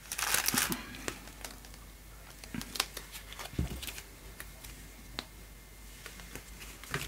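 Light rustling and small taps from hands handling thread organizer cards strung with embroidery floss: a short rustle at the start, then scattered soft clicks, with a dull thump about halfway through as a card is set down.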